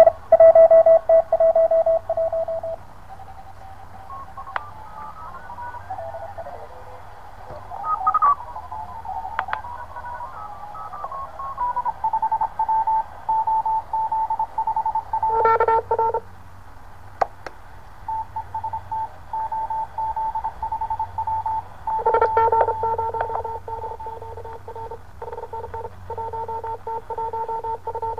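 Morse code (CW) on the 20 m amateur band, heard through a cheap HF QRP SDR transceiver's small speaker: keyed beeps in rapid dots and dashes. For a few seconds the beeps step up and down in pitch as the receiver is tuned. After that one station holds a steady higher pitch, with a second, lower-pitched station keying over it briefly around the middle and again near the end.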